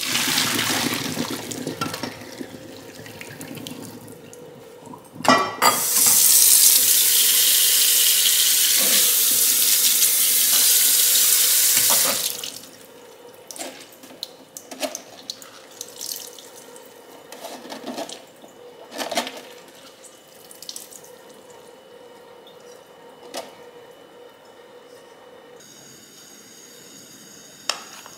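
Hot water poured from a wok through a mesh strainer into a kitchen sink, splashing and tapering off. After a clank, the tap runs hard for about six seconds over blanched greens in the strainer, then stops, followed by scattered light knocks and rustles as the greens are handled in the metal strainer.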